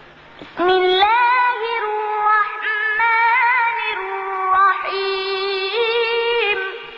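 A child's high voice reciting the Quran in a melodic chant, with long held, wavering notes. It starts about half a second in and fades near the end.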